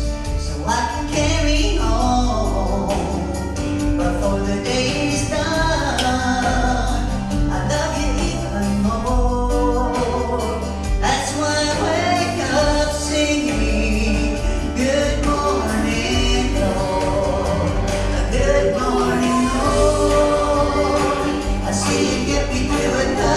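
Gospel vocal group singing in harmony over a steady instrumental accompaniment with a strong bass line.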